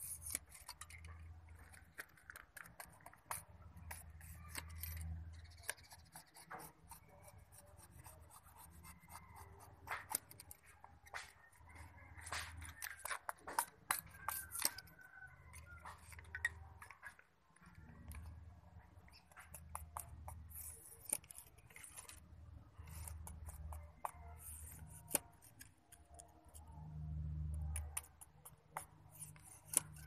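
Machete blade scraping and cutting thin bamboo sticks, with frequent sharp clicks and knocks of blade and bamboo pieces. A low rumble comes and goes, loudest near the end.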